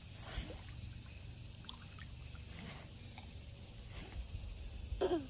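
Faint outdoor background: a steady low rumble with a few soft ticks, and a short falling tone near the end.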